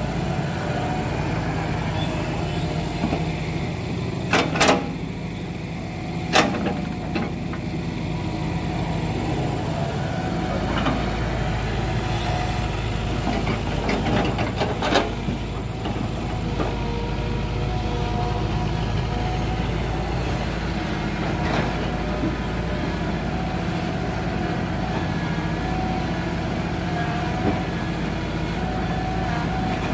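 Hitachi crawler excavator's diesel engine running steadily as it works among felled rubber-tree logs. Several sharp knocks come through: two about four and six seconds in, and a cluster around eleven to fifteen seconds.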